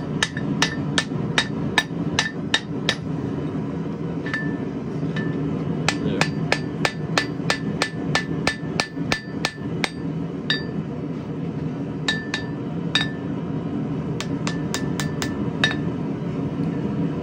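Hand hammer striking a red-hot mild steel bar on an anvil, each blow ringing briefly. The blows come in quick runs of about two to three a second, with short pauses between runs.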